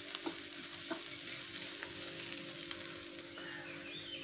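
Spiced onion, cabbage and green-chilli filling sautéing on low heat in a nonstick frying pan: a steady gentle sizzle, with a wooden spatula stirring and scraping through it and a few light clicks. A faint steady hum runs underneath.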